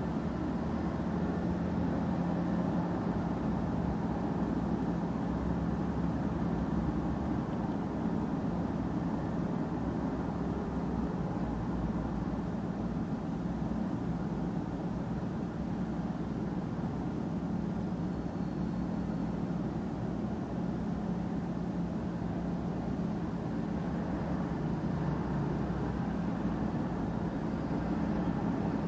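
Steady low engine drone of a car idling while stopped, with road traffic crossing in front.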